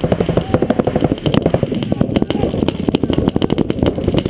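Paintball markers firing rapidly, many sharp pops a second running together into a continuous rattle.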